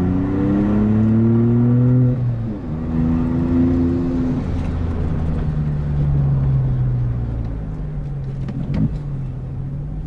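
Volkswagen Up TSI's turbocharged 1.0 three-cylinder engine running through a bare straight pipe with the rest of the exhaust removed, accelerating through the gears. The revs climb, drop at a shift about two seconds in, climb again and drop at a second shift a couple of seconds later, then settle into a steady cruise. A short sharp sound comes near the end.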